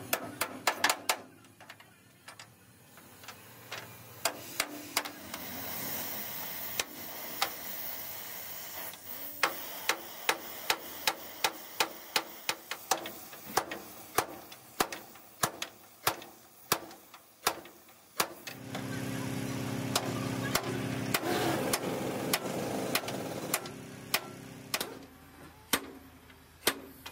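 Repeated sharp knocks of hammering on metal, about two a second. Roughly two-thirds of the way in, a motor runs steadily underneath for about five seconds.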